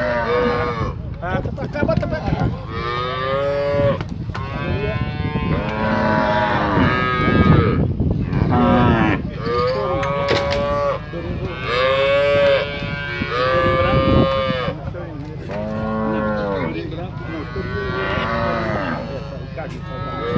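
A pen full of cattle and calves mooing and bawling, many overlapping calls one after another with hardly a pause.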